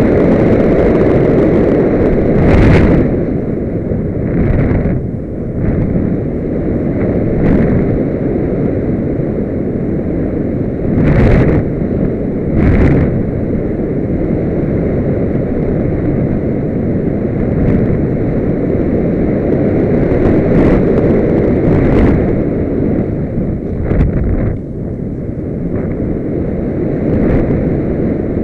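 Wind rushing over the onboard camera's microphone on an RC glider in flight: a loud, steady roar of airflow with a few short, sharper buffets.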